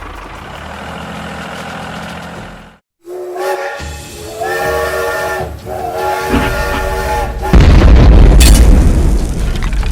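A steady motor hum that cuts out briefly, then a many-toned horn blown in pulses for about four seconds. The horn is followed by a loud, low rumbling boom.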